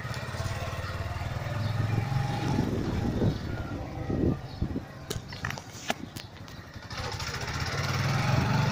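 Motorcycle engine running while riding, its note rising and falling with the throttle, louder near the end. A few sharp knocks stand out about five to six seconds in.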